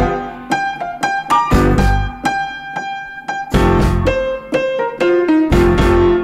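Background music led by an electric piano playing a light melody. The bass and low end drop out for about three seconds, leaving only the higher keyboard notes, then come back in.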